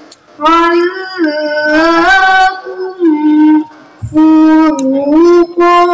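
A girl's voice reciting the Quran in melodic tilawah style, amplified through a stage sound system. She holds long notes that bend slowly up and down, with short breaths near the start and about four seconds in.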